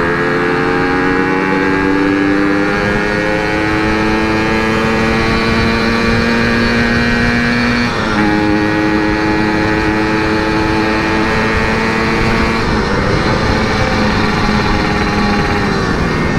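Yamaha RX-King's 135cc single-cylinder two-stroke engine running through an aftermarket CRC Series expansion-chamber exhaust while riding. It pulls steadily up in pitch for about eight seconds, drops sharply on an upshift, then holds a fairly even pitch.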